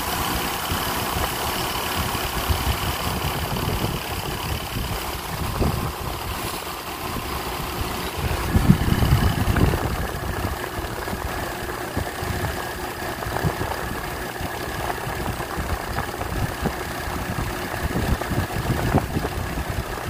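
Twin-tub portable washing machine's spin-dry tub running: a steady motor hum and vibration as it spins water out of the clothes. A brief louder rumble comes about nine seconds in.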